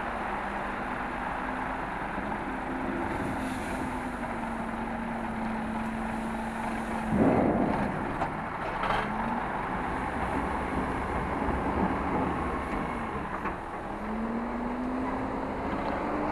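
IFA W50 truck's diesel engine running while it side-tips, its note rising and falling as it drives the tipper hydraulics. About seven seconds in, the load of chopped silage slides out of the raised body with a loud rush.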